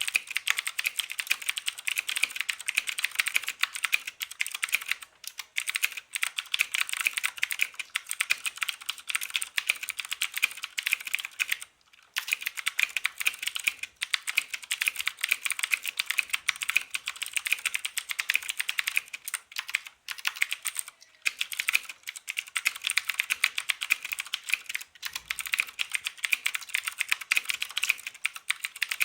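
Fast, continuous typing on a Thermaltake Poseidon mechanical keyboard with Cherry MX Blue switches, each keystroke a crisp click, with a few short pauses.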